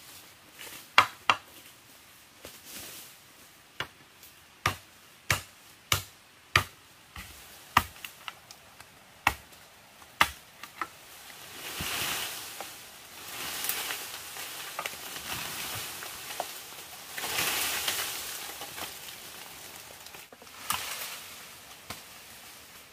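Chopping with a blade: about fifteen sharp, irregular strokes over roughly ten seconds, then a hissing noise that swells and fades for about ten seconds.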